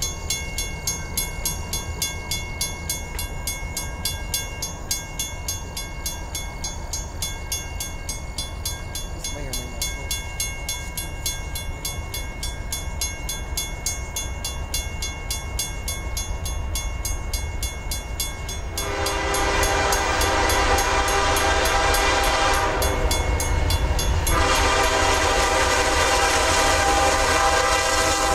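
Grade-crossing bell ringing steadily at the flashing crossing. About two-thirds through, the approaching CSX ES44AH locomotive's horn sounds one long blast, stops for about a second and a half, then starts a second long blast: the warning horn for the crossing.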